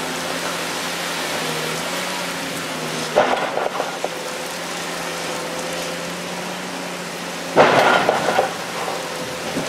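Caterpillar 345C L long-reach excavator's diesel engine running steadily under hydraulic load as its demolition jaws chew into a concrete silo top. Concrete cracks and crumbles twice, about three seconds in and louder near the end.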